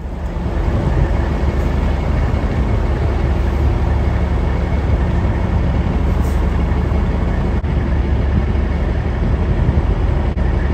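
Diesel semi-truck engines running close to the microphone: a loud, steady low rumble with an even hum beneath it, growing a little louder in the first second.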